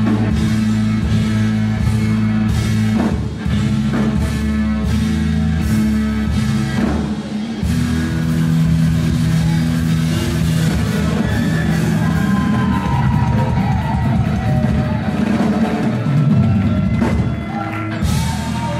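Live rock band playing: electric guitar, bass guitar and drum kit, with a loud cymbal crash near the end.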